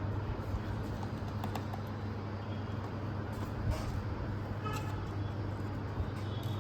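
Steady low hum with background road traffic, a faint vehicle horn toot about five seconds in, and a few light clicks.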